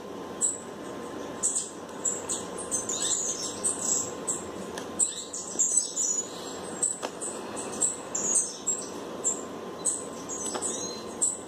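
Small birds chirping rapidly and repeatedly, high and quick, over a faint steady hum.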